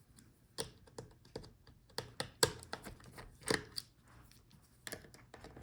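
Irregular light clicks and taps of hard plastic and metal laptop parts and tools being handled during disassembly, about a dozen in all, the loudest about two and a half and three and a half seconds in.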